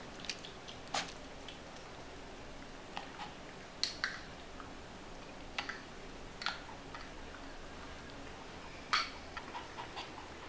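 A small dog licking ice cream off a metal spoon and smacking its lips. About a dozen short, wet clicks come at irregular intervals.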